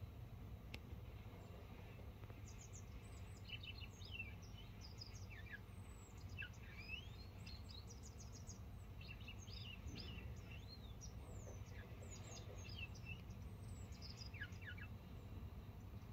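Grey wagtail singing faintly: a run of thin, high, quick notes and short slurred calls, starting a couple of seconds in and going on until near the end, over a steady low background rumble.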